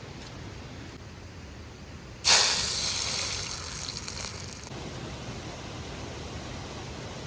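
A sudden loud hiss about two seconds in, fading away over about two and a half seconds, over a faint steady rushing background.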